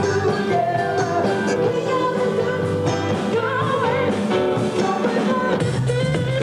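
A live rock band playing, with a singer on a microphone over electric guitar and a steady beat.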